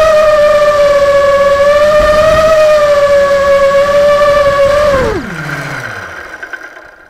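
Blade Vortex 250 Pro quadcopter's brushless motors and propellers whining steadily at a hover, recorded close up on the quad's own camera. About five seconds in the pitch drops steeply and the motors spin down and fade out as the quad settles into the grass.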